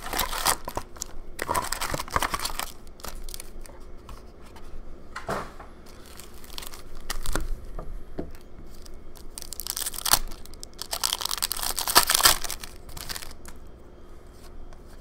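Foil wrappers of hockey card packs being torn open and crinkled by hand, in several separate bursts of tearing, the loudest near the end.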